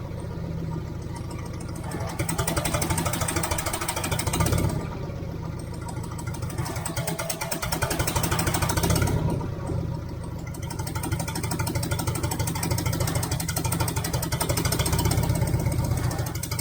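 Mobility loader's engine running after warming up, its level rising and falling several times as it is worked.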